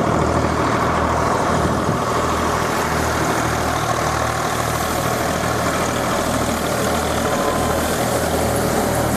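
Power-driven paddy thresher running steadily while paddy bundles are fed in: a continuous engine drone with a low hum that swells and dips about once a second, under a dense whirring and rushing of the threshing drum.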